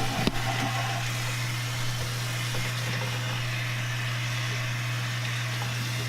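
A steady low machine hum with a hiss over it, and one sharp click about a third of a second in.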